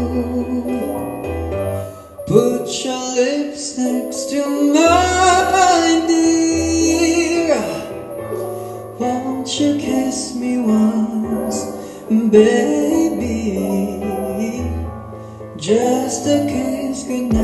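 A man singing a slow song into a handheld microphone over a backing track with bass and keyboard, holding one long, gliding note in the middle.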